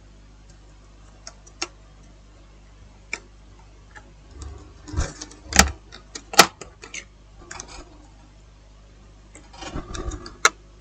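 Scattered small plastic clicks and taps of laptop parts and cable connectors being handled and fitted during reassembly, with a cluster of louder clicks midway and a few more near the end.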